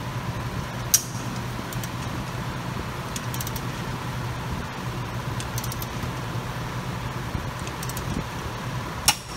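Long torque wrench torquing a bolt to spec: a few light metallic clinks and two sharp clicks, about a second in and near the end, over a steady shop hum with a faint steady whine.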